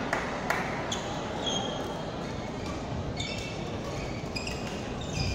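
Busy indoor badminton hall: scattered sharp shuttlecock hits from the courts in play, with a few short high squeaks of shoes on the court mats over the hall's steady background.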